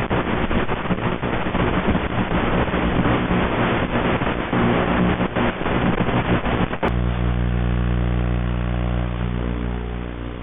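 The 3D-printed RC lifeboat's motor and the water around the hull, heard through the boat's small onboard camera microphone: a rough, crackling run of noise over a faint motor buzz. About seven seconds in a sharp click gives way to a steady buzzing hum.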